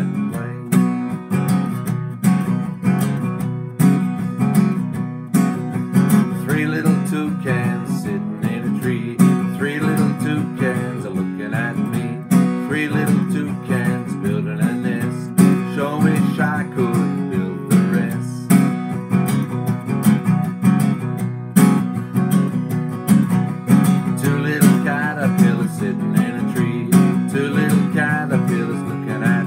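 Acoustic guitar strummed steadily in a rhythmic chord pattern, with a man's singing voice over it in places, most plainly near the end.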